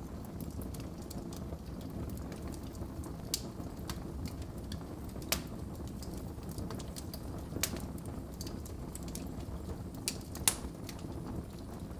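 Wood fire burning in a fireplace: a steady low rumble of flames with irregular sharp crackles and pops, the loudest pop about ten and a half seconds in.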